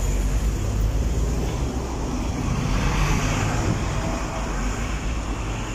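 Street traffic of buses and cars going by, a steady low rumble that swells about three seconds in.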